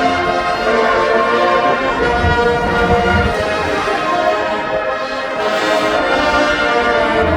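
A large marching band with its alumni band playing a tune, brass (trombones, trumpets, horns) loud and full.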